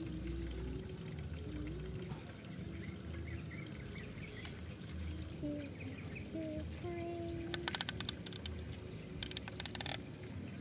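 Plastic toy construction vehicles being pushed and scooping through loose dry soil: soft scraping and trickling of dirt. Near the end come two short bursts of rapid clicking, about a second apart, which are the loudest sounds.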